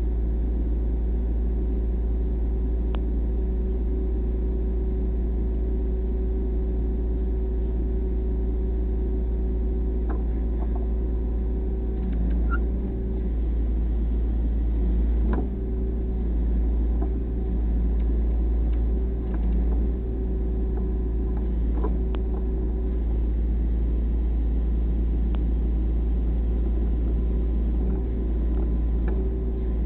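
An engine running steadily, with a low rumble and a few light ticks and knocks partway through.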